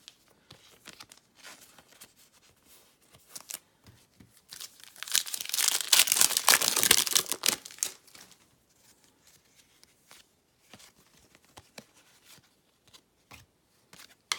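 A baseball card pack's wrapper being torn open: a loud crinkling rip that starts about four and a half seconds in and lasts about three seconds. Light ticks and rustles of cards being handled come before and after it.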